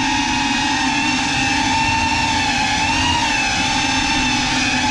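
FPV drone's brushless motors and propellers whining steadily, heard from the camera mounted on the drone; the pitch rises and dips briefly about three seconds in.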